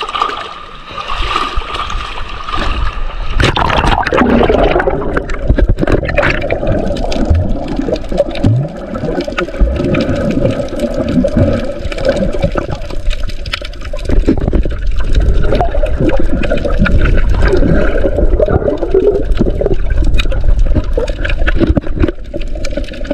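Seawater sloshing at the surface, then, about three and a half seconds in, the camera goes under and the sound turns into a muffled underwater rumble with gurgling bubbles.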